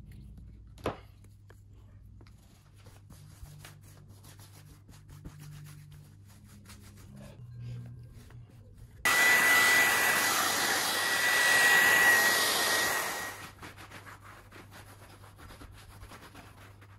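A hand-held electric blower is switched on about nine seconds in. It runs for about four seconds as a loud rush of air with a steady high whine, then stops. Around it there is faint rubbing on the canvas and a single click near the start.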